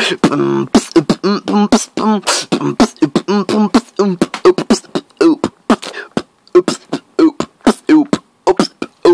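A person beatboxing: quick percussive mouth clicks and hits mixed with short pitched vocal sounds, in a fast, uneven rhythm of about four or five strokes a second.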